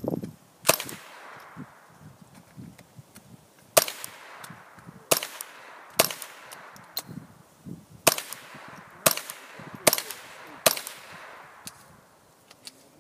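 Ruger 10/22 .22 rimfire semi-automatic rifle fired about eight times at uneven intervals, each sharp crack followed by a short echo.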